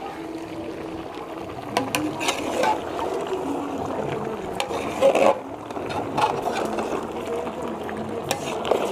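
Metal slotted spatula scraping and knocking against the side of a large metal cooking pot as chicken and tomatoes are stirred, over a steady sizzle from the pot. The scrapes come irregularly, loudest about five seconds in.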